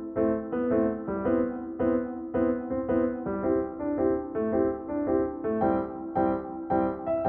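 Background music: a piano or electric-piano line playing steady, evenly spaced notes, about two a second.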